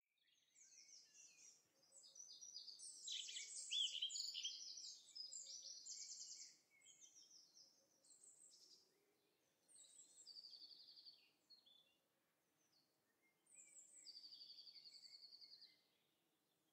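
Songbirds singing in a string of quick trilled phrases and chirps with short pauses between them, loudest about three to six seconds in.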